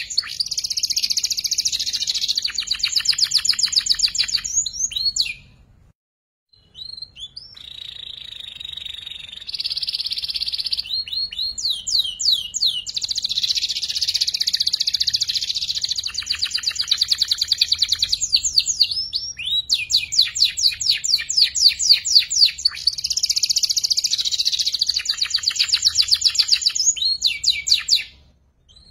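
Young canary singing long phrases of rapid trilled chatter, quick repeated high notes in the 'ngeriwik' style of a bird still learning its song. The singing breaks off for about a second and a half a few seconds in, and again briefly near the end.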